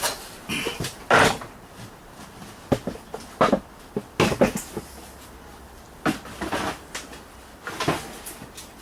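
Scattered clunks and knocks of heavy metal mower parts being moved and set down, about seven separate hits with quieter shuffling between.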